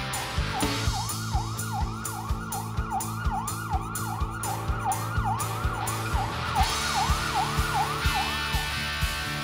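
Rock band playing: Premier drum kit and electric bass keep a steady beat, with a siren-like wail sweeping up and down a little over twice a second over them, stopping near the end.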